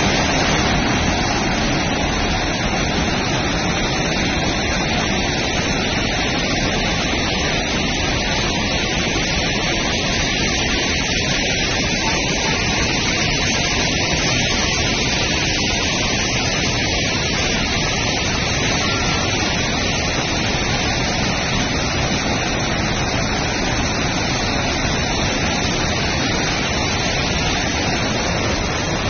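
Floodwater rushing over a road embankment: a loud, steady rushing noise with no break.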